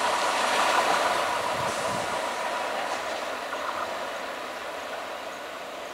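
Electric multiple unit local train running along a curve as it draws away, its wheel-on-rail noise fading steadily.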